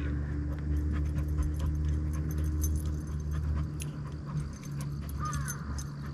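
A dog whining briefly about five seconds in, over a steady low motor hum that is louder in the first half and then eases off.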